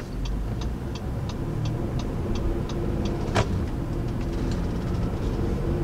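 Cabin sound of the 2019 Honda Ridgeline's 3.5-litre V6 and tyres as the truck pulls away and gathers speed: a steady low hum growing slightly louder. Over it a turn signal ticks lightly about three times a second, with one sharper click about three and a half seconds in.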